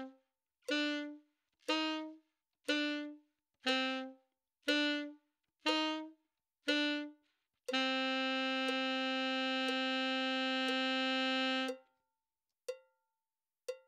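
Alto saxophone playing short detached notes, written A, B, C, B twice over, about one a second, then holding a long A for four beats. A metronome ticks each beat, and about a second after the held note ends it ticks on alone.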